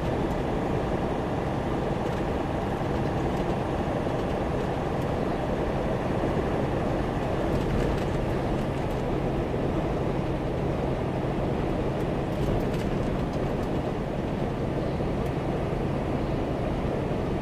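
A truck cruising at highway speed, heard from inside the cab: a steady low engine hum under road and tyre noise.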